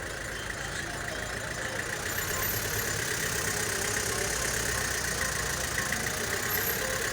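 A vehicle engine running steadily with road noise, growing slightly louder about two seconds in.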